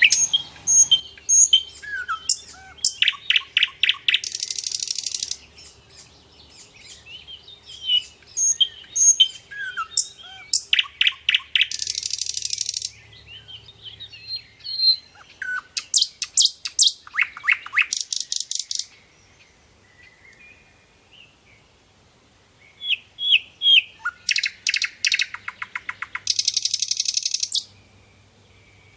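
Nightingale singing in four phrases of rapidly repeated notes and short whistles, with pauses of a few seconds between them. Three of the phrases end in a harsh buzzy rattle about a second long.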